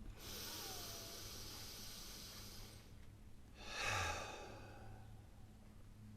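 A person breathing deeply during breathwork: a long, hissing breath lasting nearly three seconds, then a short, louder audible sigh about four seconds in.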